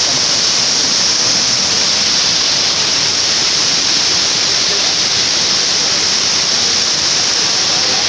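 Waterfall rushing: a steady, loud hiss of falling water.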